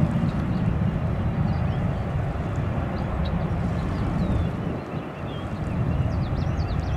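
Steady low rumble of airport ambience with wind on the microphone, dipping briefly about five seconds in. Faint short high chirps, like small birds, sound over it.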